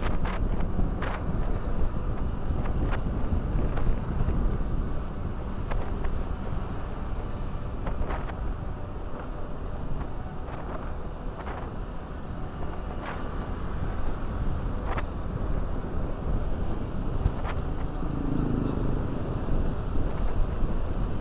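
Motorcycle being ridden: its engine runs under heavy wind noise on the microphone, with a number of short knocks scattered through it.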